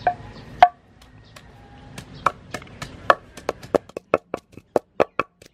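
Wooden pestle pounding chilies in a wooden mortar: two knocks near the start, then from about two seconds in a steady run of knocks that quickens to about four a second.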